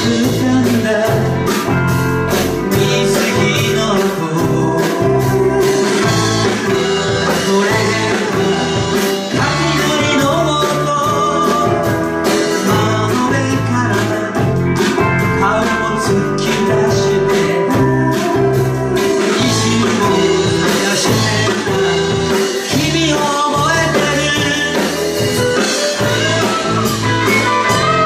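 A live band plays a song on electric guitars, keyboard, bass and drum kit, with singing over the top.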